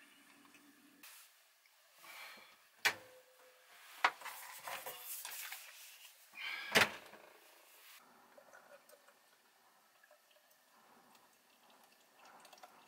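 Handling sounds as a fridge is opened and something is taken out: three sharp clicks or clunks, about three, four and seven seconds in, with rustling between them. Near the end, liquid starts pouring into a glass.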